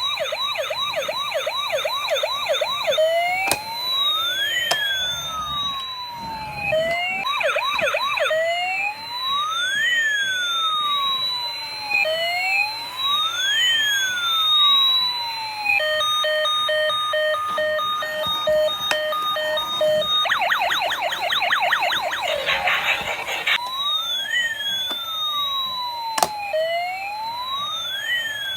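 Electronic toy siren cycling through its patterns: a fast warble, then slow rising-and-falling wails, a stretch of steady pulsed beeping tones, another fast warble, and more wails. A few sharp clicks are heard along the way.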